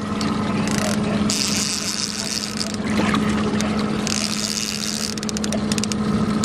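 A boat engine idles steadily under three bursts of water splashing and trickling, each about a second long, with a quick run of clicks about five seconds in.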